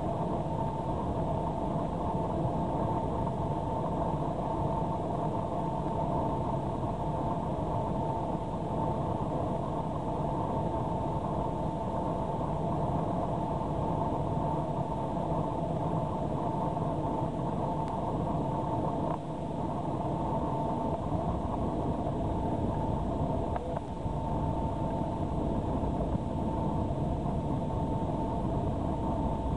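Airliner cabin noise on a night landing approach: the engines' steady rumble with a steady whine held over it.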